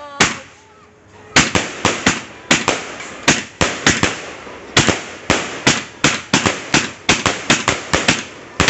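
A 150-shot consumer firework cake, the Leegendary Fireworks Takeshi Castle Pyro Pro, firing. A single bang is followed by a pause of about a second, then a steady run of sharp shell bursts at about three a second.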